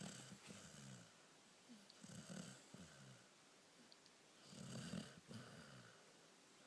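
Faint snoring of a sleeper, a rasping snore coming with each slow breath every couple of seconds.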